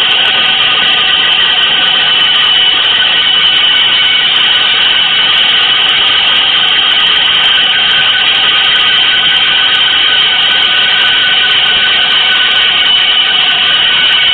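Loud, steady wall of noise with several held high tones layered through it: an experimental electronic noise drone.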